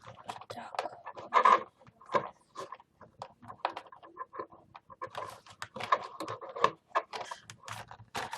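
Plastic and cardboard toy packaging being handled: irregular crinkles and clicks.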